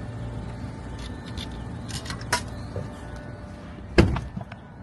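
Car engine idling with several light clicks and one sharp knock about four seconds in, as a parking token is fed into a parking-lot exit machine.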